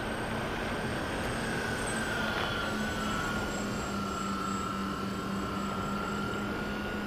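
Dynam Skybus DC-3 radio-controlled model airplane in flight, its twin electric motors and propellers giving a steady whine over a constant rush of air. The whine dips slightly in pitch about halfway through, then holds.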